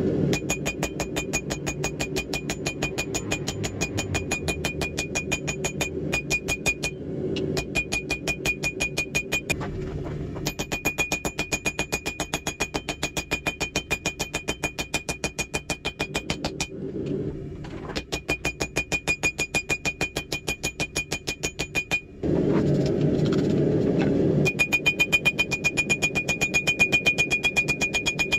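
Hand hammer striking red-hot steel on an anvil in quick, even blows, the anvil ringing between strikes, as the steel is wrapped to form a tomahawk's eye. The blows pause briefly a few times, and a low rushing sound comes up for a couple of seconds about two-thirds of the way in.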